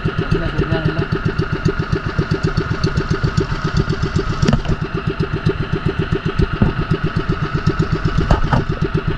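Small outrigger boat's engine running steadily under way, an even, rapid putter of several beats a second.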